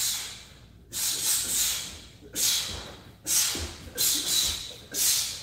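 A fighter's sharp hissing exhalations through the teeth, about five in a row roughly a second apart. Each breath goes with a punch or kick while shadowboxing a combination.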